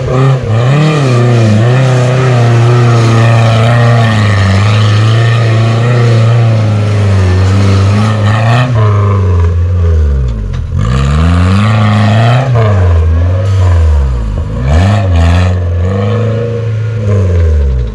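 Off-road 4x4's engine running hard at high revs, then the revs repeatedly drop away and climb again in the second half.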